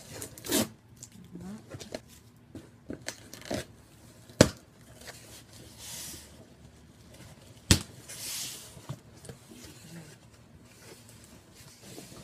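Cardboard shipping box being opened by hand: packing tape tearing and flaps rustling in several short spells, with two sharp clicks a few seconds apart.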